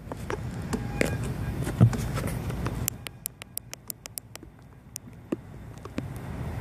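Bicycle ridden with its camera mounted on the frame, giving wind and tyre rumble with occasional knocks. About three seconds in there is a short run of quick, even ticks, the rear hub's freewheel clicking as the rider coasts.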